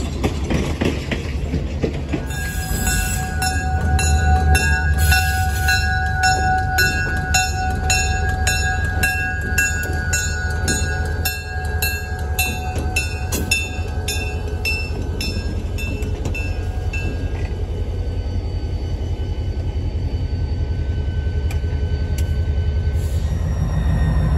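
Diesel locomotive engine rumbling steadily while a bell rings about twice a second from about two seconds in, fading out around two-thirds of the way through. The engine gets louder near the end as the locomotive draws closer.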